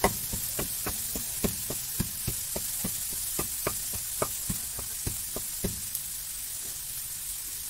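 Pork and potato pieces sizzling in a metal pan over an open wood fire: a steady frying hiss with irregular crackling pops, about three a second, that thin out after about six seconds.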